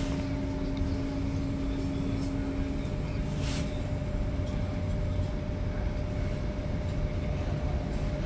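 Interior sound of a Frankfurt type R tram car running: a steady low rumble with a constant hum. A second, lower tone fades out about three seconds in.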